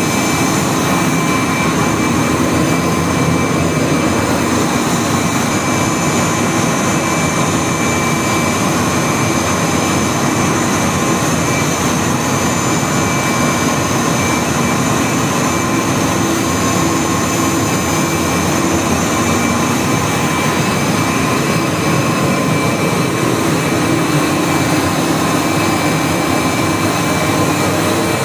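Open-end rotor spinning machine with 600 heads running: a loud, steady whir of motors, belts and rotors with several high steady whines over it.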